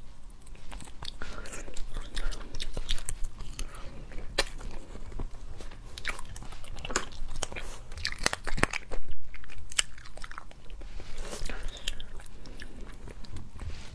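Close-miked eating of sauced crab: crisp cracks and crunches as shell pieces are bitten and pulled apart, with wet chewing in between. The sharpest cracks come a little past the middle.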